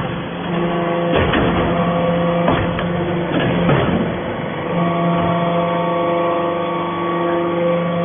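Hydraulic aluminum-chip briquetting press running: a steady hum from its hydraulic pump and motor, with several sharp clunks in the first four seconds as the ram works. The hum's tone shifts about five seconds in.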